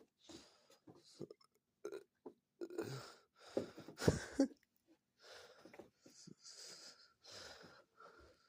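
A dog breathing and snuffling in short breathy huffs, with scattered scuffs and a louder thump about four seconds in.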